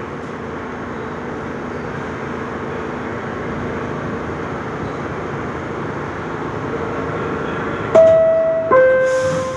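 Steady noise inside an R62A subway car. About eight seconds in, the car's door chime sounds two descending notes, a bright 'ding-dong' that signals the doors are about to close.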